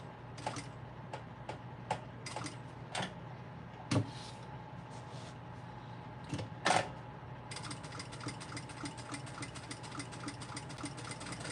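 Electric sewing machine stitching around the clear vinyl edge of a bookmark: scattered separate clicks at first, then from about seven and a half seconds in a fast, even run of needle strokes.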